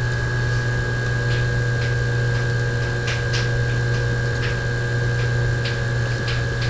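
Steady electrical hum with a thin high whine over it, with a few faint scattered clicks.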